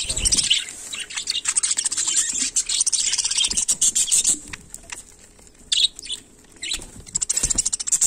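Flock of budgerigars chattering and chirping, with a fast ticking of beaks pecking at food. A wing flutter comes at the start, and the chatter thins out about halfway through to a few single chirps before it picks up again near the end.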